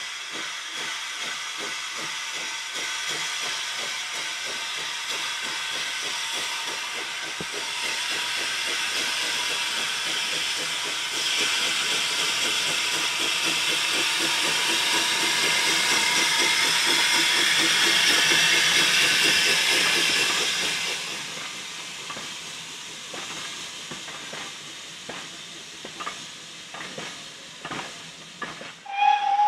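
Avonside 0-4-0 saddle tank steam locomotive, GWR No. 1340 Trojan, pulling away with a train of coaches: chuffing exhaust over loud steam hiss, growing louder as it passes and fading about two thirds of the way through. Then the coaches roll by with clicks and knocks of wheels over rail joints, and a brief loud tone comes just before the end.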